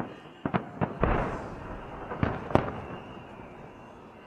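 Fireworks salute bursting overhead: a string of sharp bangs. A heavier report about a second in is followed by a long rolling rumble, and two more loud bangs come a little past two seconds.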